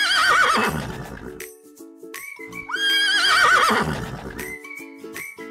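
A horse whinnying twice, each call starting high and quavering as it falls, over background music.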